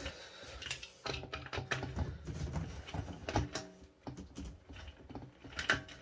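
Irregular plastic clicks and knocks from the base of a Hart 6-gallon stainless steel wet/dry vac being forced down onto its drum, with a locking ring that has to be lined up so it catches.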